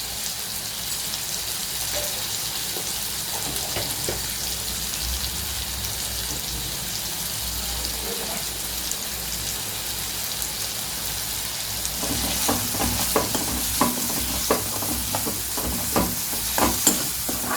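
Garlic, small onions and tomato sizzling in oil in a kadai. From about twelve seconds in, a spatula scrapes and knocks against the pan in quick, uneven strokes as the mixture is stirred.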